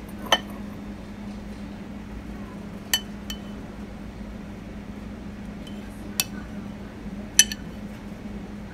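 Metal spoon clinking against a ceramic serving bowl: five or six short, sharp clinks spread out over several seconds, over a steady low hum.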